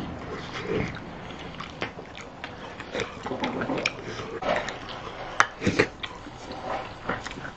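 A man chewing a mouthful of soft braised pig's trotter, with irregular smacking and slurping mouth sounds and a few short hums of enjoyment.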